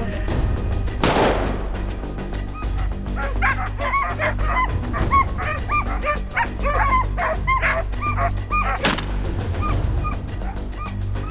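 A shotgun shot about a second in, then hunting hounds baying and yelping in quick repeated cries, and another sharp crack near the end.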